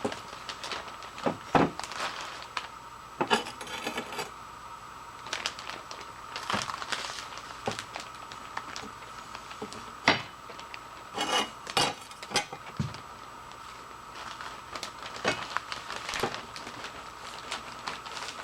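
Brass switch plates being handled and packed into a bag: scattered light clinks and taps of metal, with brief bag rustling twice.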